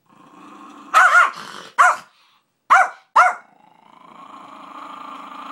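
A small dog growling aggressively, breaking into five sharp barks, then settling into a long growl that grows louder.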